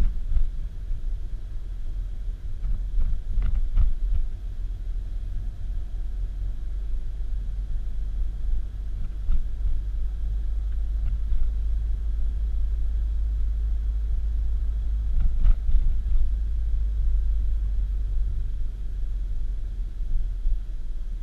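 Steady low rumble of a car on the move, with a few faint clicks about three and a half seconds in and again about fifteen seconds in.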